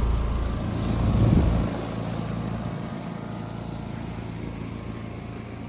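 Outdoor heat pump unit running with a steady low mechanical hum, which swells briefly about a second in and then drops away sharply to a quieter steady background.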